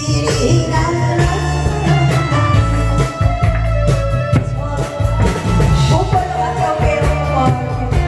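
Loud trot medley: Korean trot music with a steady beat and a gliding melody line.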